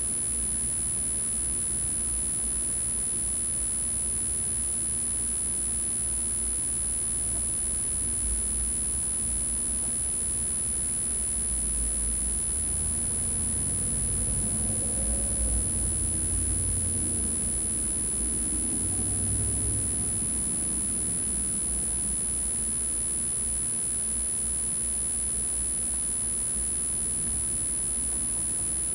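Wind buffeting an outdoor camera microphone: a steady low rumble with a constant high-pitched whine over it. A deeper rumble swells and fades between about 12 and 20 seconds in.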